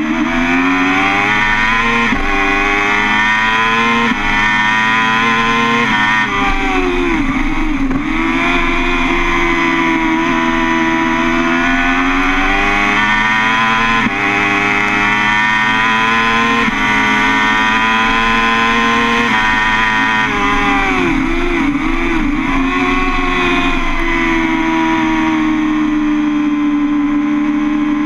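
BMW S 1000 RR inline-four engine at racing speed, pitch climbing through quick upshifts about every two seconds early on. It shifts down twice under braking, with the revs dipping and wobbling, and pulls hard again in between.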